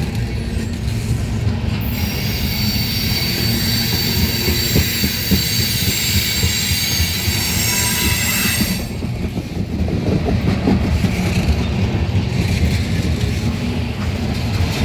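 Freight train cars rolling past with a steady low rumble. About two seconds in, a high, shrill metallic wheel squeal sets in, holds for about seven seconds, and then cuts off abruptly.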